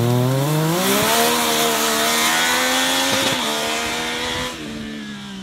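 Formula Student race car engine accelerating hard from a standstill. The note climbs quickly in pitch over the first second, then holds high and steady, and drops in loudness near the end as the car pulls away into the distance.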